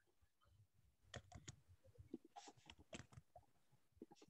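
Faint computer keyboard typing: short runs of keystrokes about a second in, again around two and a half to three seconds, and briefly near the end, against near silence.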